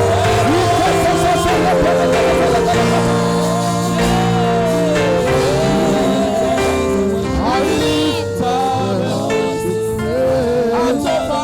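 Church worship music: voices singing a slow gospel praise song over sustained keyboard chords and bass.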